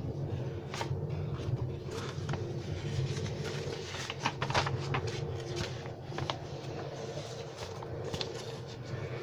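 Paper instruction sheets handled and pages turned: scattered rustles and light crinkles, busiest about four to five seconds in, over a steady low hum.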